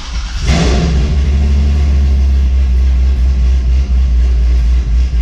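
Car engine starting about half a second in with a brief flare of revs, then settling into a steady, loud idle rumble.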